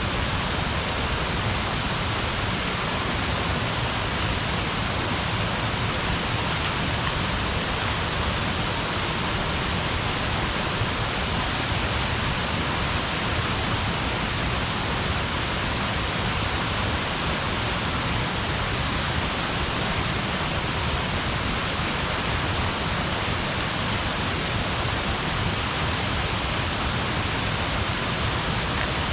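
Steady, even rushing noise with no crackles, pops or other distinct sounds.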